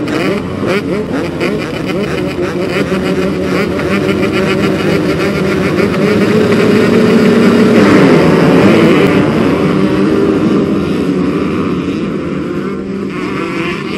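Several motocross dirt bike engines running and revving together, the sound swelling louder about halfway through and then easing off.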